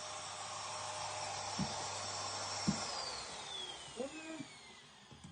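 Ash vacuum motor running with a steady high whine, then switched off about three seconds in, its whine falling in pitch as the motor winds down.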